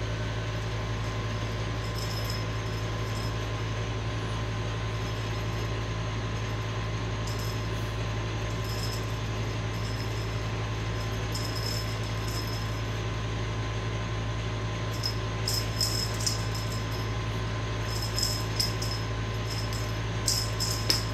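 Steady low mechanical hum of a running room appliance, like an air conditioner. In the last several seconds come light, scattered rustles and clicks from cats playing with a feathered wand toy on a rug.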